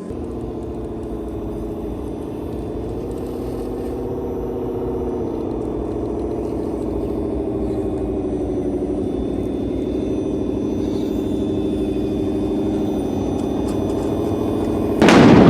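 Brushless electric motor of an RC crawler whining steadily under throttle, the pitch wavering slowly as the load changes. Near the end a sudden loud burst of noise cuts in.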